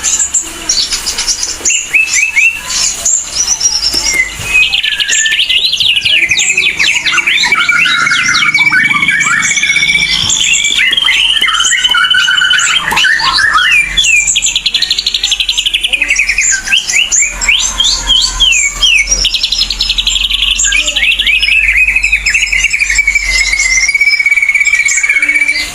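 Ashy drongo singing without pause: a busy stream of quick sliding whistles, chattering notes and fast buzzy trills, the rapid 'cililin'-style phrases of a bird in full song.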